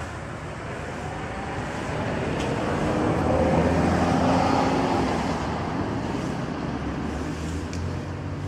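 Road traffic: a motor vehicle passing, its engine and tyre noise swelling to a peak about four seconds in and then fading, over a steady low hum.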